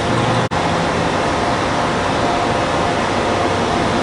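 Steady, even rushing outdoor noise with a faint hum underneath, dropping out for an instant about half a second in.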